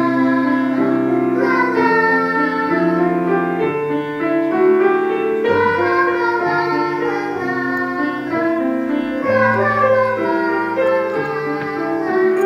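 Violin playing a melody with vibrato over piano accompaniment.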